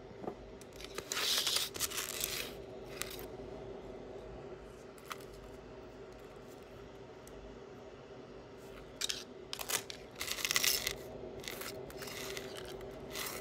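Jewelry being handled and sorted: small metal pieces and chains clinking and rustling in short irregular bursts, over a faint steady hum.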